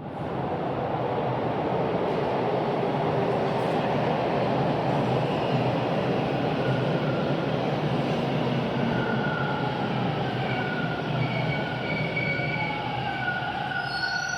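TTC rail vehicle running on the track with a steady rumble; thin high-pitched wheel squeal creeps in about halfway and grows stronger near the end.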